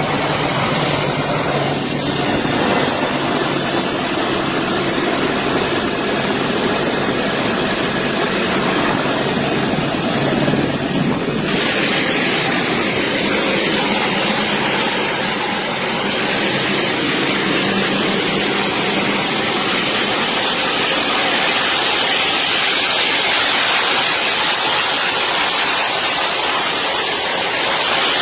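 Loud, steady noise of a military transport jet's turbofan engines running close by, mixed with wind buffeting the microphone. About eleven seconds in the sound turns harsher and hissier.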